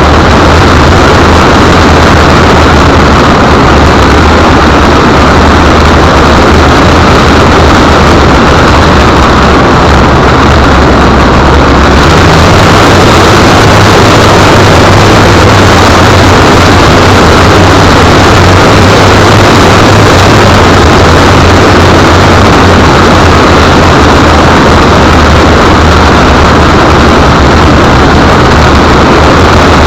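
Loud, steady rush of wind and motor noise from a keyring camera on the underside of an RC plane in flight, overloading the small microphone. The low hum shifts a little about twelve seconds in.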